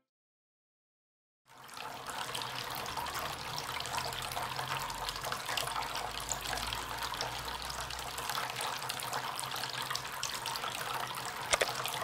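Water from a tabletop rock fountain's tap spout, fed by a small submersible pump, falling into the basin below in a steady trickle that starts about a second and a half in. A couple of short clicks near the end.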